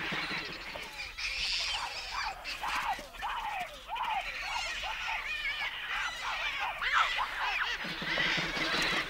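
A troop of baboons screaming and squealing as they squabble over food scraps: many short, overlapping calls that rise and fall in pitch.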